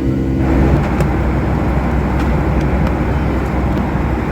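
Steady low rumble of a moving vehicle heard from inside the cabin, with a broad rushing noise that swells up about half a second in and then holds.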